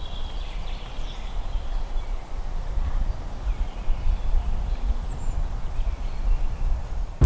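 Outdoor park ambience: wind buffeting the microphone, an irregular low rumble, with faint birdsong near the start.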